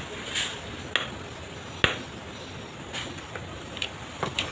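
Sharp, irregular taps, about six of them with the loudest just under two seconds in, as a flat river stone is tapped into fresh mortar with the end of a tool handle to bed it.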